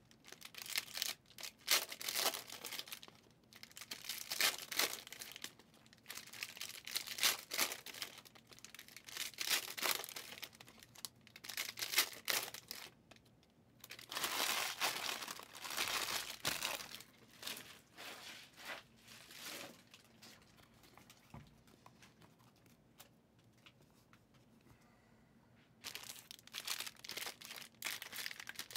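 Trading-card pack wrappers crinkling and tearing and cards being handled and dropped onto a stack, in a run of crisp crackles and rustles. There is one longer continuous rustle about halfway through, then a quieter spell before the handling picks up again near the end.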